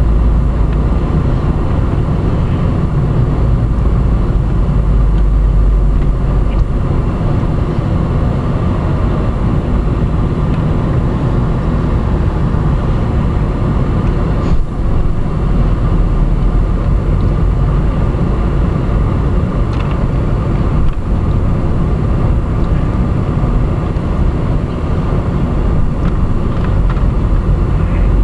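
Steady low rumble of road and engine noise heard from inside a moving car's cabin, with a couple of faint ticks about halfway through.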